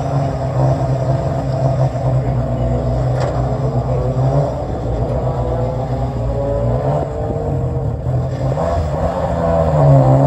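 Rally car engine running at a steady idle, growing a little louder near the end.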